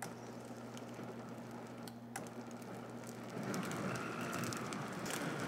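Countertop blender pulsing milk with popped popcorn, butter and sugar: a click about two seconds in, then the motor and churning liquid grow louder from about three seconds in, with a whine that rises slightly in pitch.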